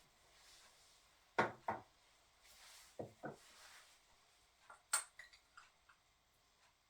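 Light knocks and clicks of objects being handled and set down: two quick pairs of knocks, then a sharper click about five seconds in with a few faint ticks around it.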